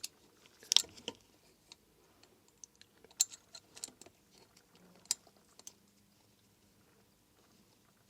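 Scattered light clicks and metallic taps of parts and hand tools being handled while fitting components on an engine, several sharper knocks in the first few seconds, then only faint ticks.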